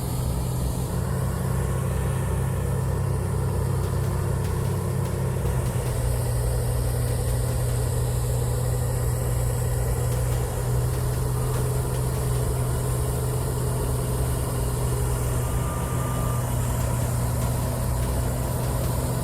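Diesel engine of a Cat 938G wheel loader fitted with a snowblower, running steadily with a constant low drone.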